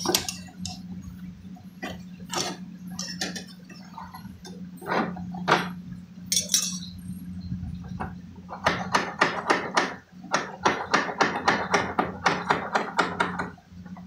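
Hand-made knocks and clinks on the fridge's rear pipework beside the compressor, where a drain pipe is blocked with ice. The knocks are scattered at first, then come as a rapid run of about four a second from about eight and a half seconds in, over a steady low hum.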